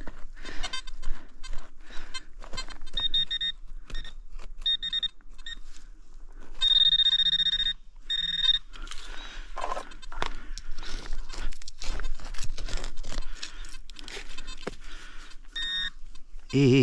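Gloved hands scraping and digging through loose soil and dry leaves, with a handheld metal-detecting pinpointer giving several high beeps, one held about seven seconds in and a short one near the end, as it closes in on a buried metal target in the hole.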